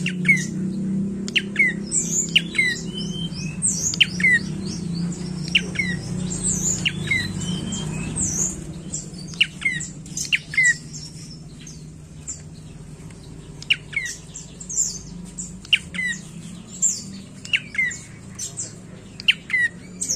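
Caged tailorbird (prenjak coki) calling over and over: short, sharp high notes, each sweeping steeply down in pitch, about once or twice a second. A low hum runs underneath and drops away after about eight seconds.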